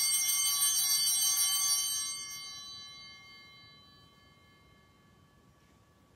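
Altar bells rung at the elevation of the consecrated host: a cluster of bright ringing tones that stops being rung about two seconds in and fades away over the next two seconds.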